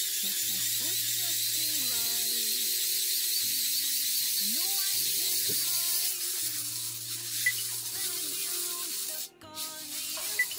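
Hand-crank dynamo charger being cranked: a steady, high whirring hiss from its gearing, easing off about six seconds in and breaking off briefly near the end. Quiet background music runs underneath.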